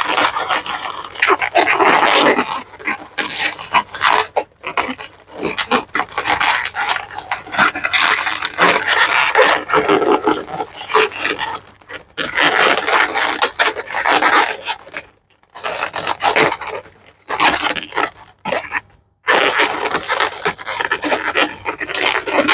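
Inflated latex modelling balloons rubbing and scraping against one another and against hands in irregular bursts as the balloon sculpture is pushed and adjusted into place.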